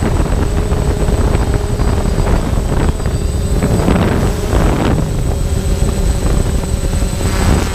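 Quadcopter motors and propellers buzzing steadily, heard from the drone's own onboard camera, with a heavy rumble of air buffeting the microphone.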